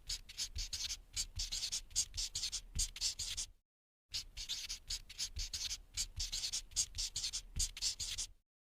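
Oil pastel scratching across paper in quick back-and-forth strokes, several a second, with a half-second gap of dead silence about three and a half seconds in and another near the end.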